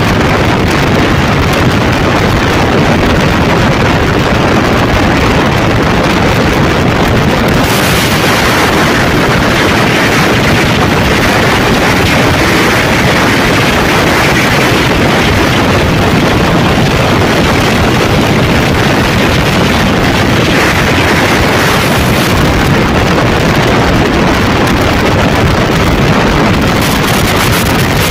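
Wind buffeting the microphone on a moving Yamaha Lander 250 motorcycle, over the steady drone of its single-cylinder engine. The wind hiss grows stronger about eight seconds in.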